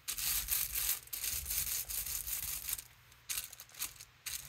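Rubber brayer rolled over tissue paper laid on an inked gel printing plate, then a hand rubbing the tissue down onto the plate: scratchy rustling strokes with a short pause about three seconds in.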